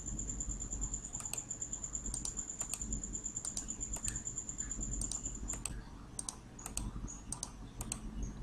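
Irregular light clicking, typical of a computer keyboard and mouse in use, over a low hum. A steady high-pitched whine runs beneath and cuts off about five and a half seconds in.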